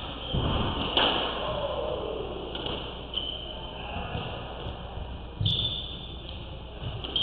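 Squash rally: sharp smacks of the ball off rackets and court walls, a few seconds apart, the loudest about a second in and about five and a half seconds in.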